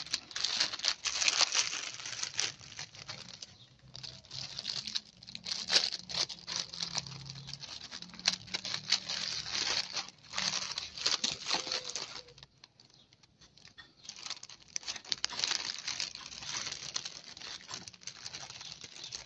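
Clear plastic cellophane bags and packaged candy wrappers crinkling and rustling in irregular handfuls as candies are packed into a bag, with a short lull about two-thirds of the way through.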